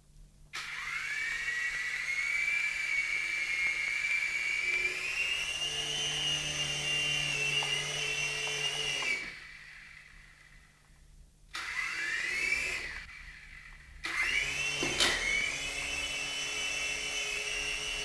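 DFD Fire Wolf F103 mini RC helicopter's electric motors and rotors whining as they spin up to a steady pitch, cutting out about halfway through, then spooling up again twice with a short drop between, and a sharp tap on the second restart. Its lipo battery is running flat, so the power keeps dropping away.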